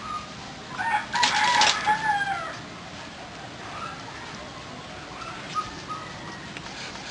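A rooster crows once, about a second in, a call of about a second and a half that holds and then falls away at the end; fainter short calls follow later.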